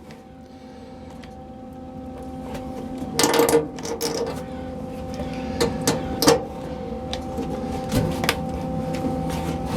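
Welding a steel patch into a truck cab floor: a steady machine hum with short crackling bursts of the welding arc, the longest about three seconds in and a few briefer ones after.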